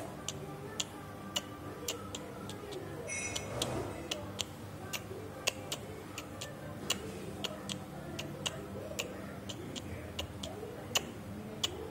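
Sharp ticking clicks, roughly one to two a second and not quite even, over a faint background murmur, with one brief high squeaky sound about three seconds in.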